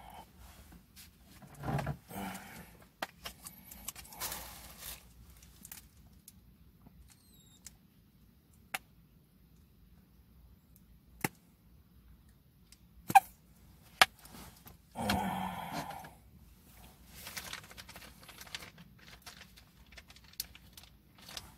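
Scattered handling noises: sharp clicks and knocks with short rustles as food and a plastic squeeze bottle are handled, the loudest click about thirteen seconds in and the loudest rustle just after.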